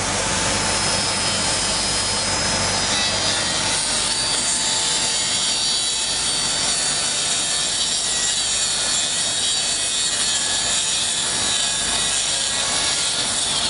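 Small handheld electric cutter with a blade, cutting along the curved edge of a poplar wood snowboard core: a steady high motor whine over rasping wood-cutting noise, which stops near the end.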